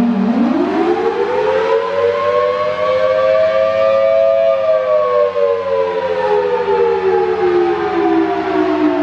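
Federal Signal Thunderbolt 1000AT siren sounding the attack signal, a two-note chord: its pitch climbs quickly over the first few seconds, peaks near the middle, then falls slowly through the rest.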